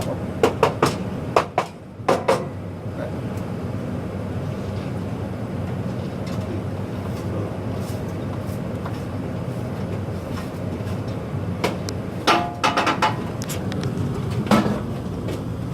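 Steady low hum of gas water heaters firing at full heat, with a few sharp clicks and knocks in the first couple of seconds and again near the end.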